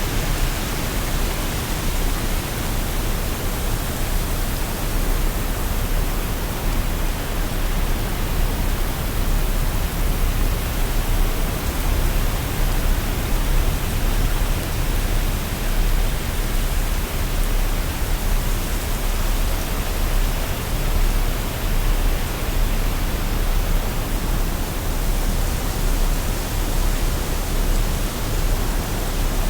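Waterfall: falling water rushing in a steady, unbroken roar of noise, heaviest in the low end.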